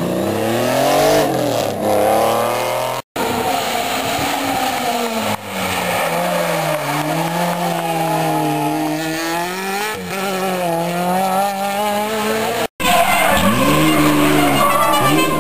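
Rally car engines revving hard through sliding hairpin turns, their pitch rising and falling with the throttle, with some tyre squeal. The sound cuts off abruptly twice, about three seconds in and near the end, as a different car takes over each time.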